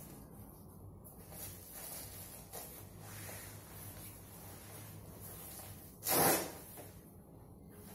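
Waterproof PVC-coated skirt fabric rustling and swishing as it is wrapped around the waist, with one short loud rasp about six seconds in as the waistband's hook-and-loop fastener is worked.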